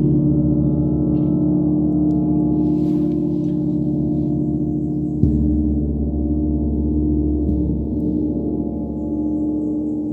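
A one-metre gong struck with a felt-headed mallet, ringing on in a sustained wash of many overlapping tones; it is struck again about five seconds in and the ringing swells.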